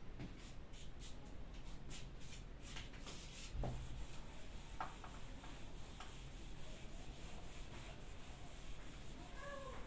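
Whiteboard duster wiping marker writing off a whiteboard: faint, repeated scratchy rubbing strokes, with one dull knock about three and a half seconds in.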